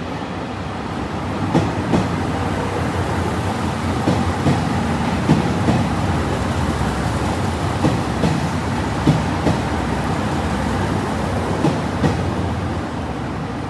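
A train rolling past along the platform with a steady rumble, its wheels clacking over rail joints in quick pairs every second or so.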